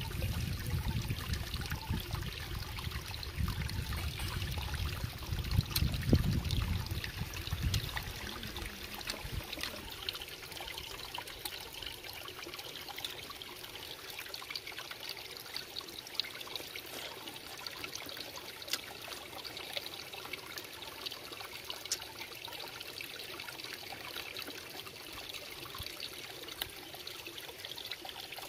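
Water trickling steadily, with scattered small clicks. A heavier low-pitched noise is added during the first eight seconds or so.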